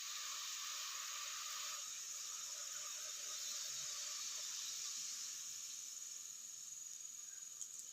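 Large pot of spiced, salted water boiling for parboiling rice, a steady hiss with a thin high whine above it, easing slightly in the second half.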